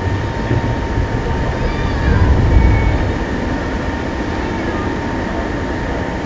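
Steady outdoor theme-park din: a constant rushing noise with a faint steady hum, and a low rumble that swells about two seconds in and fades a second later.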